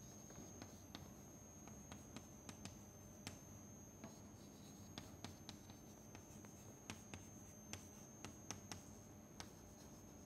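Chalk writing on a chalkboard, faint: irregular sharp taps and light scratches as the letters are formed.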